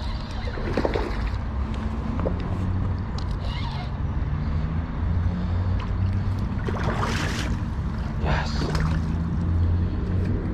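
A hooked largemouth bass splashing at the surface while it is reeled in, in three short bursts: about a second in, and twice near the end. A steady low rumble runs underneath.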